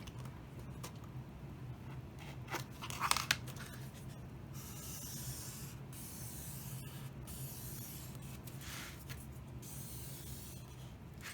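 Faint rubbing and scraping of a paper pencil (paper blending stump) pressed along folded-over thin embossing metal, smoothing it flat against the mounting board in a few long strokes, over a low steady hum.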